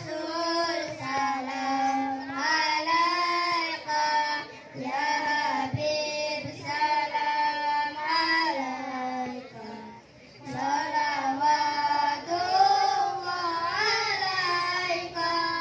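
Children singing a sholawat, a devotional song in praise of the Prophet, in held, flowing phrases into handheld microphones, with a short break about ten seconds in.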